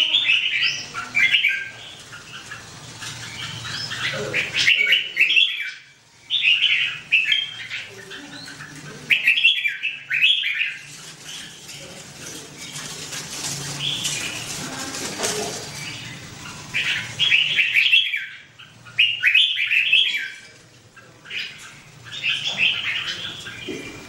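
Red-whiskered bulbuls singing loud, short warbling phrases, about seven bursts a few seconds apart. A brief rustle, likely wing flutter, comes about halfway through.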